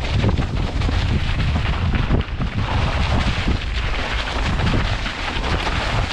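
Enduro mountain bike descending a snowy, rocky trail, heard from a helmet-mounted camera: a steady low rumble of tyres over snow, dirt and stones, with frequent knocks and rattles from the bike over the bumps.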